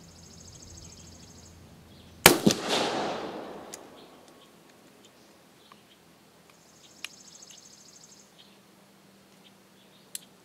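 One shot from an Uberti Walker .44 black-powder cap-and-ball revolver: a loud crack about two seconds in with a long echo dying away. Later come a few light metallic clicks as the hammer and cylinder are worked, the action binding up.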